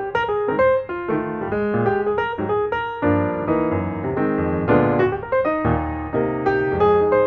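Piano music: a melody of struck notes over chords, with deeper bass notes joining about three seconds in.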